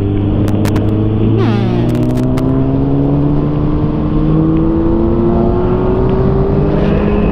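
Motorcycle engine under way, its note climbing slowly and steadily as the bike speeds up, over wind rushing past the helmet microphone.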